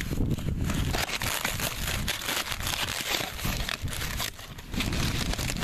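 White packing wrap being handled and pulled open by hand, with irregular crinkling and rustling and a brief lull about four seconds in.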